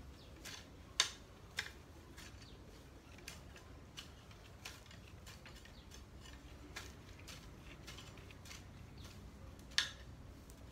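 A hand tool cutting through grass and weeds: irregular short, crisp snips and swishes, faint, with two louder ones about a second in and near the end.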